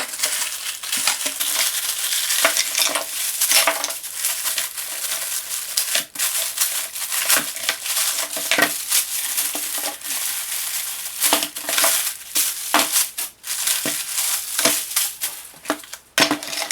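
Plastic packaging crinkling and rustling in irregular crackles as boxed accessories are handled and unwrapped.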